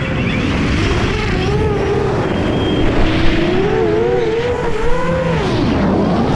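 Onboard audio of a Catalyst Machineworks Cannonball X-class racing drone's motors and propellers whining in flight, the pitch rising and falling as the throttle changes, over a constant low rumble.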